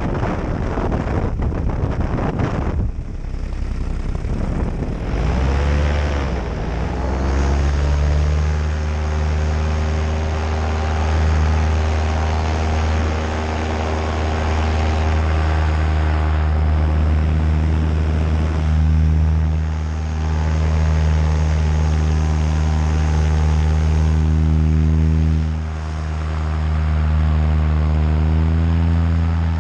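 Nitro 200 paramotor's two-stroke engine and propeller. For the first few seconds wind buffets the microphone, then the engine revs up and runs steadily, easing off briefly a few times.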